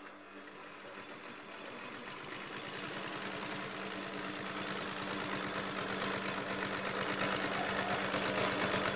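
Typical GC6240 twin-needle industrial lockstitch sewing machine stitching a thick strip. Its even run of needle strokes quickens and grows louder as it picks up speed, then stops sharply at the end.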